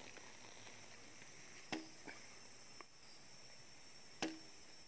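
Two sharp snaps against a sawn wooden plank, about two and a half seconds apart, each with a short low ring. Insects trill faintly and steadily behind them.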